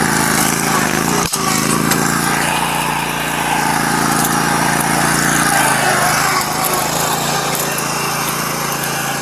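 Riding lawn mower's small engine running steadily, then growing fainter about six seconds in as it moves off.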